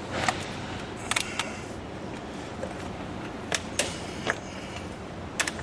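Sharp plastic clicks and knocks, about seven scattered over a few seconds, as the under-hood fuse box cover is handled and snapped shut.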